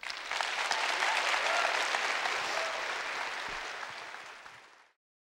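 Audience applauding after a talk. It swells within the first second, then slowly dies away and cuts off abruptly near the end.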